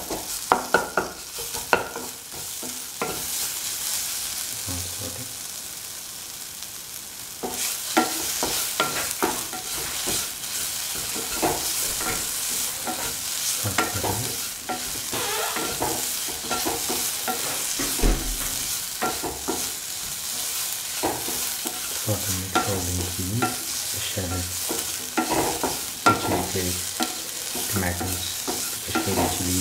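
Shallots, tomato and dried red chillies sizzling in hot oil in a pan while a spatula stirs them, scraping and knocking against the pan. The sizzle gets louder about seven seconds in.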